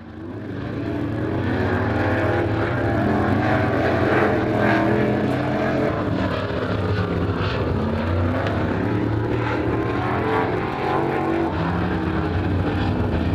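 Several crate late model race cars' V8 engines running together, their pitches rising and falling as they circle, fading in over the first second or two.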